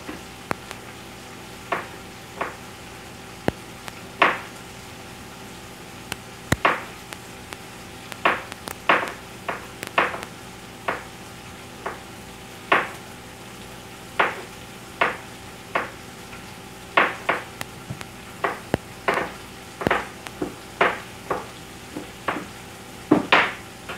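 Bacon being cut up and fried in a frying pan on a gas stove: a string of short, irregular kitchen-work bursts, roughly one a second, over a steady faint hiss and hum.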